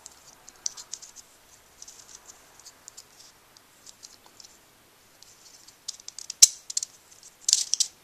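Plastic pieces of a VeryPuzzle Snow Mystery twisty puzzle clicking and rattling as it is turned by hand to scramble it. One sharp louder click comes about six and a half seconds in, and a quick run of clicks comes near the end.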